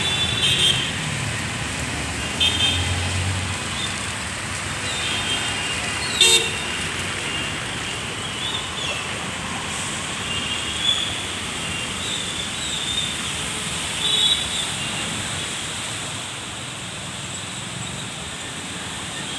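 Road traffic on waterlogged streets: a steady wash of vehicle and tyre noise with short, high vehicle-horn toots every few seconds.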